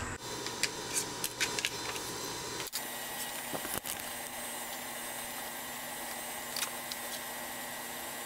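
Steady background hiss with a few light clicks in the first few seconds.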